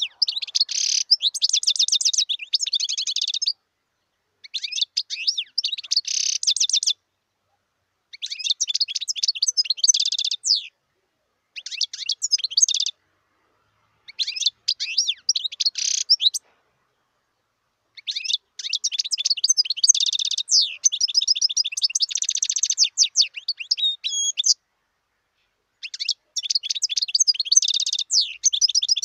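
European goldfinch singing: about seven phrases of fast, high twittering and liquid trills, each a few seconds long and broken by short pauses, with the longest phrase near the middle.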